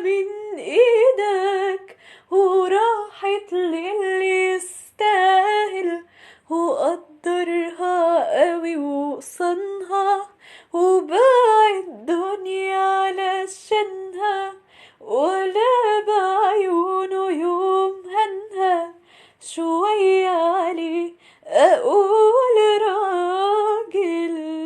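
A woman singing an Egyptian Arabic song unaccompanied, in phrases separated by short pauses.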